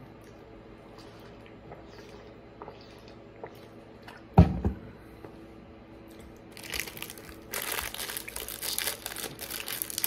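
A single sharp thump a little before halfway, then from about six and a half seconds in, loud, continuous crinkling and rustling of snack packaging being handled.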